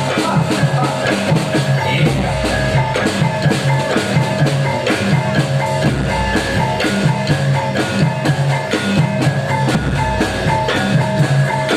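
Loud live music for a Bujang Ganong dance: drums and percussion keep a fast, steady beat under held melody notes, with a deep low hit about every four seconds.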